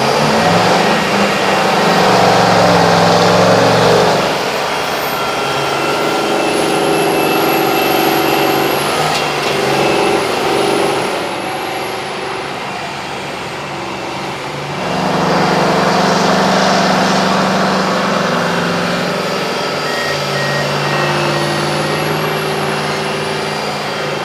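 Heavy dump truck's diesel engine running under load, its pitch shifting up and down, with two louder stretches: about a second in and about fifteen seconds in.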